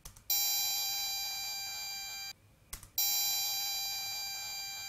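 An audio sample pitch-shifted up 41 semitones with Audacity's Change Pitch effect, played back twice: a bright, bitey, high tone of many stacked overtones that starts sharply, fades slowly over about two seconds and cuts off, with a faint click just before each playback.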